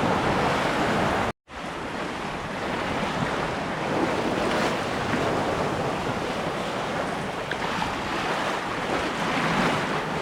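Lake waves and water rushing along the hull of a sailboat under sail, with wind on the microphone. The sound cuts out for an instant about a second and a half in.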